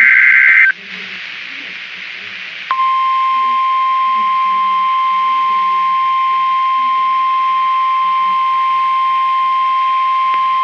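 NOAA Weather Radio Emergency Alert System tones. A SAME header data burst of fast warbling digital tones cuts off under a second in, then a couple of seconds of radio hiss follow. About 2.7 s in, the steady 1050 Hz warning alarm tone starts and holds, signalling that a warning message is about to be broadcast.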